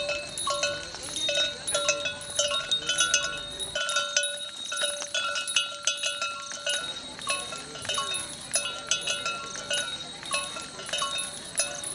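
Background instrumental music made of short, quickly repeated notes at several pitches.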